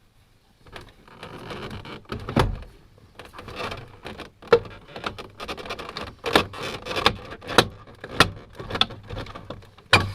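Plastic interior door card of a BMW X5 being prised and pulled away from the door: rustling scrapes with repeated sharp clicks and knocks, several louder snaps spread through.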